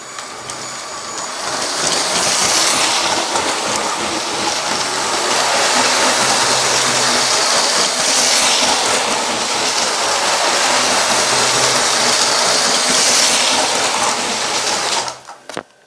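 Lego 7745 train, driven by a Power Functions motor, running on plastic track with a steady rattle and a low motor hum. It swells louder every five seconds or so and stops suddenly near the end.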